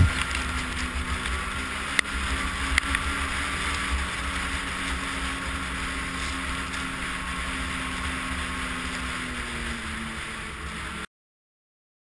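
Snowmobile engine running at a steady speed while the sled rides along, with a steady hiss above the engine drone. Two sharp clicks come about two seconds in, and the sound cuts off suddenly near the end.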